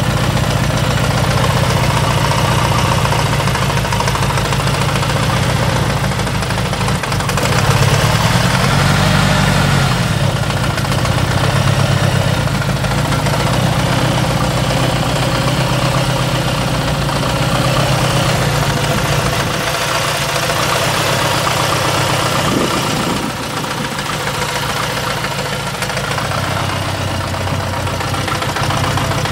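Saab 9-3's four-cylinder ecopower engine idling steadily, with a brief rise and fall in engine speed about eight seconds in.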